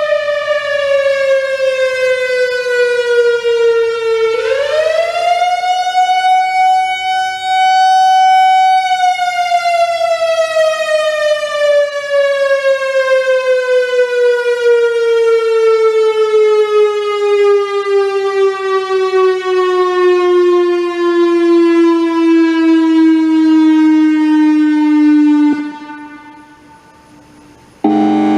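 Whelen WPS-3000 electronic outdoor warning siren sounding a wailing tone. The pitch falls, rises back and holds for about three seconds, then slides slowly down for about sixteen seconds and stops a couple of seconds before the end. A new steady, horn-like tone starts right at the close.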